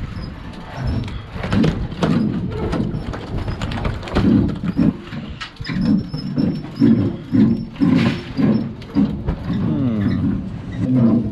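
Irregular knocking and clattering of handling on a fishing boat's deck, with a run of quick, evenly spaced low thuds through the middle.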